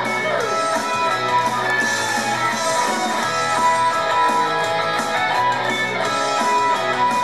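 Instrumental passage of a pop-rock song with strummed electric guitar, steady and loud, with no singing.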